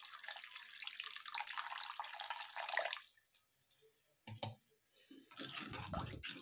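A bowl of water poured into a hot kadhai of tomato purée, hissing and splashing, stopping about three seconds in. Near the end a steel ladle knocks and scrapes against the pan as the soup is stirred.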